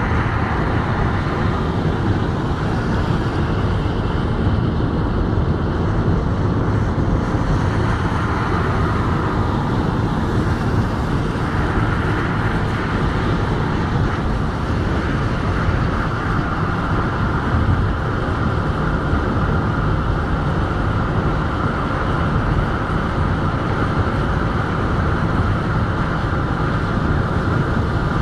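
Steady road noise of a car driving on a motorway, heard from inside the car's cabin.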